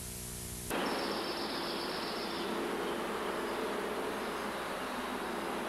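Steady outdoor background noise, an even hiss with a faint buzzing drone, that sets in sharply about a second in after a quieter low hum.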